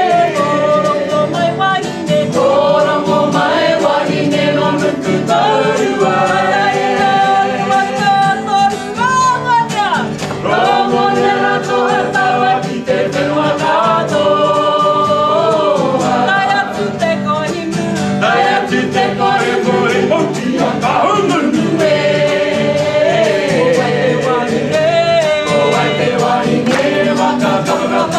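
A group of voices singing a Māori action song (waiata-ā-ringa) in te reo Māori, a steady melodic song that runs without a break.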